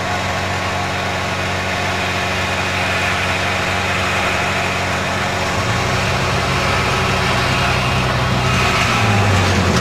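1979 Polaris TX 440 snowmobile's two-stroke engine running steadily at part throttle, growing louder as the sled comes closer near the end.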